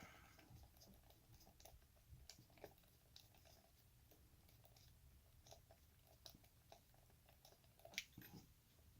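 Faint clicks and gritty scraping of a flathead screwdriver turning out a screw from a Yale lock, with one sharper click about eight seconds in.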